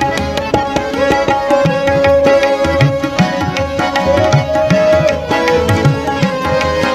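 Instrumental interlude of a live Punjabi ghazal: harmonium and a bowed string instrument carry a sustained, sliding melody over a steady tabla rhythm.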